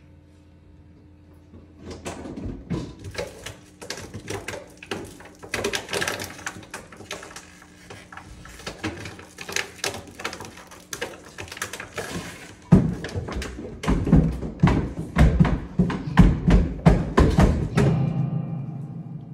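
Free-improvised percussion: a fast, irregular run of sharp strikes starting about two seconds in, turning heavier and deeper from about two-thirds of the way through, then a low ringing tone left to fade near the end.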